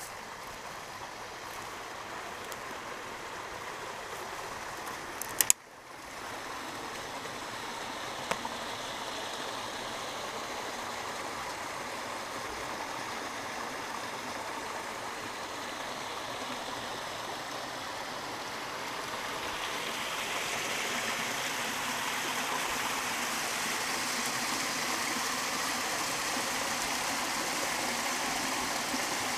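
Small forest creek running and trickling over a little waterfall, the water growing louder and brighter about two-thirds of the way through. Two sharp clicks come about five seconds in, with a fainter one a few seconds later.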